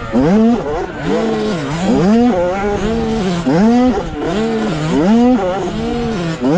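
65cc two-stroke motocross bike engine at racing speed, heard close up from the bike itself, its revs climbing, holding and dropping about once a second.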